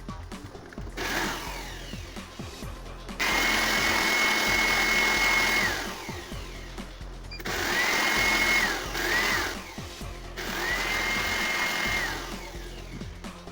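Cordless electric screwdriver running in three bursts: two longer spins, with two short spins in between. Each spin winds up to a steady whine, holds and winds down.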